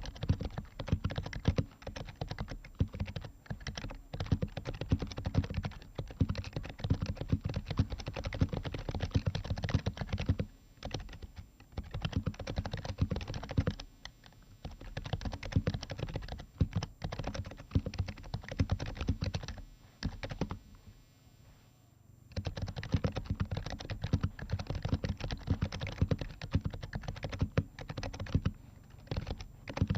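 Typing on an HHKB Pro 2 Type S keyboard, its Topre switches fitted with BKE Redux Light domes: a rapid run of key presses, several a second, with brief breaks about ten, fourteen and twenty seconds in.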